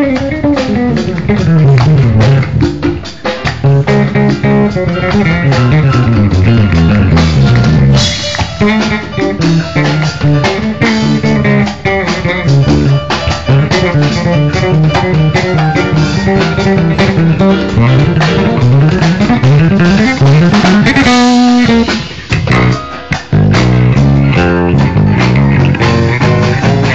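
A live band playing at a soundcheck: a bass guitar line with sliding notes under guitar and a drum kit. The music drops out briefly a little over three-quarters of the way through, then comes back in.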